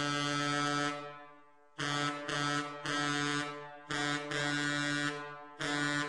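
Old steamboat horn blowing: a long, low blast cuts off about a second in, then after a short pause comes a string of short toots, several running nearly together.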